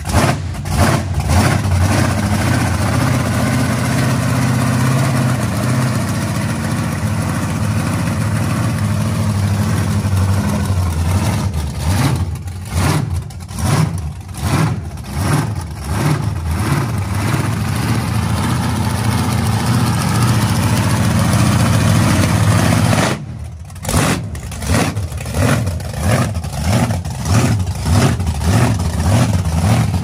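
Supercharged V8 of a 1,700 hp burnout car running loud at idle, steady at first. From about twelve seconds in it turns choppy and uneven, surging and dropping again and again.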